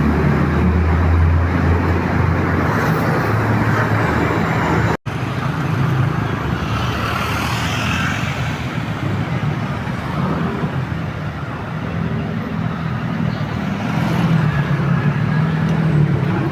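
Roadside traffic noise. A heavy engine runs close by for the first few seconds, the sound drops out for an instant about five seconds in, then steady passing traffic with engine hum follows.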